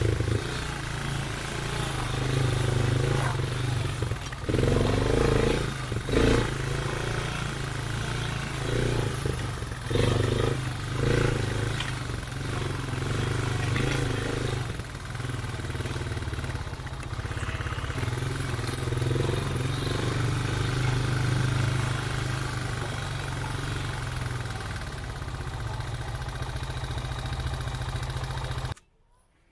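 Motorbike engine running while being ridden, its note swelling and easing off several times as the throttle changes. It cuts off abruptly just before the end.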